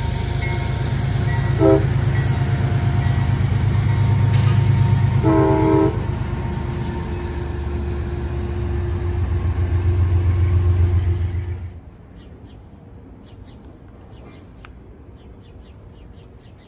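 A GE Genesis P32AC-DM passenger diesel locomotive passes close by, its engine and wheels running loud and steady. It gives a short horn blast about 2 s in and a longer one about 5 s in. Near 12 s the sound cuts off suddenly, leaving a quiet background with faint high ticks.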